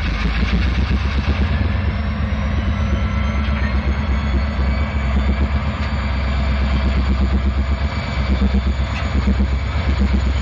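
Norfolk Southern diesel-electric locomotive working under power as it moves a cut of covered hopper cars, a heavy pulsing low rumble throughout. A faint high whine climbs over the first couple of seconds and then holds steady.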